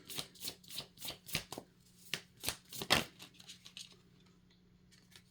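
Tarot cards being shuffled and handled: a run of sharp card flicks and snaps, about three a second, stopping about three seconds in.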